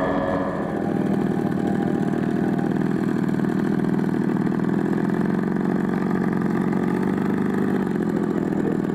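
Radio-control model Junkers Ju 87 Stuka's engine running steadily at low throttle with a fast, even pulse as the model taxis on grass. In the first moment, the droning tones of a model plane flying overhead are heard before it.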